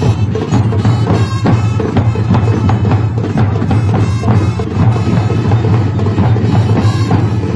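A marching drum corps playing together: snare drums cracking over deep bass drum beats in a dense, unbroken rhythm.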